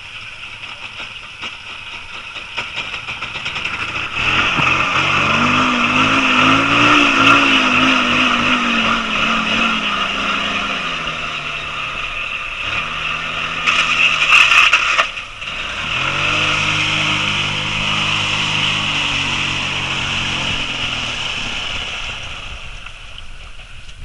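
Quad (ATV) engine revving hard while stuck in a deep mud pit, its pitch rising and falling over a loud hiss. The engine drops out briefly about fifteen seconds in, then revs again, fading near the end.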